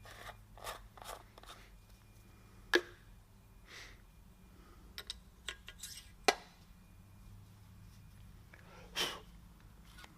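Valve lapping on a Cummins 12-valve diesel cylinder head, the number 2 intake valve worked against its seat with coarse lapping compound: scattered short gritty scrapes and sharp clicks of the valve on the seat, the loudest clicks a little under 3 seconds in and about 6 seconds in.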